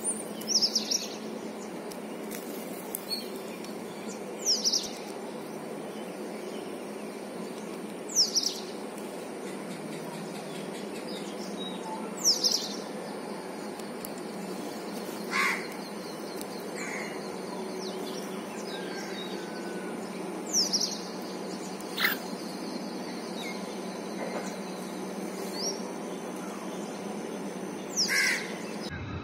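Babbler giving short, harsh calls, each a quick falling sweep, repeated every few seconds with a few fainter calls between, over steady background noise.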